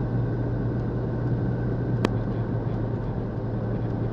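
Steady engine and road noise inside a moving car's cabin, a continuous low hum over an even rush, with one sharp click about halfway through.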